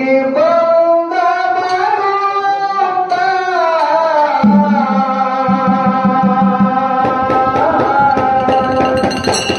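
A male lead singer sings a Kannada devotional folk song (dollina pada) through a PA, holding long, slowly bending notes. About halfway in, a hand drum comes in with a steady, quick pattern of strokes, and near the end rapid high clicking and jingling strokes join it.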